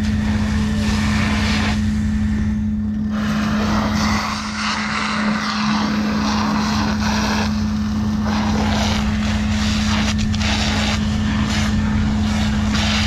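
Fire engine's engine and water pump running steadily to supply a hose line, a constant low drone, with a varying hiss above it.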